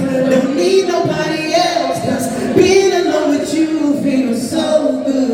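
Male R&B vocal group singing live, several voices in harmony.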